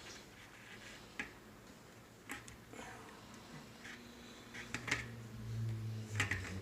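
Scattered light clicks and small knocks as a bicycle front wheel's axle and washers are fitted into the fork dropouts by hand. A low hum comes in over the last second or two.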